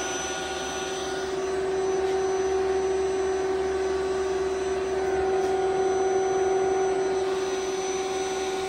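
Indramat HVE04.2 power supply and HDS03.2 servo drive powered up on test: a steady fan-like rush with a constant whine under it. It grows a little louder about two seconds in and again around five seconds.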